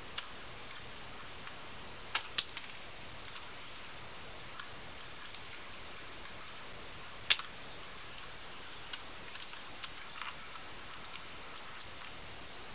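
Crimson-bellied conure working the plastic keys of an old, unplugged computer keyboard with its beak: scattered sharp plastic clicks and snaps, two close together about two seconds in and the loudest about seven seconds in, over a steady hiss.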